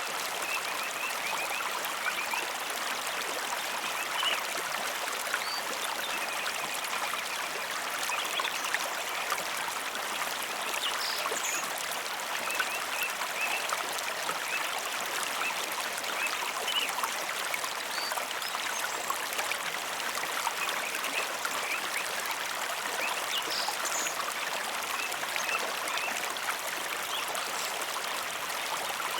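Flowing stream with a steady rush of running water, and small birds chirping in short scattered calls over it.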